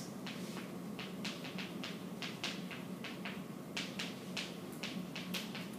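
Chalk writing on a chalkboard: a string of short scratchy strokes and taps, a few a second and unevenly spaced, over a steady low room hum.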